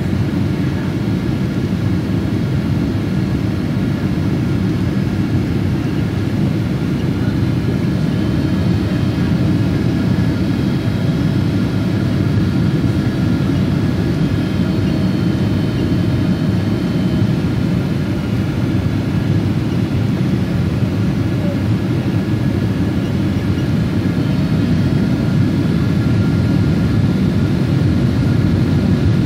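Cabin noise inside a Boeing 777-200ER around landing: a steady deep rumble of engines and airflow, with faint high whines drifting slightly in pitch, growing a little louder near the end.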